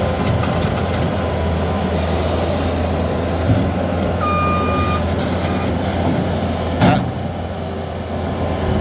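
New Holland skid steer's diesel engine running steadily while the machine is worked. A single short beep sounds about halfway through, and a loud clunk comes near the end.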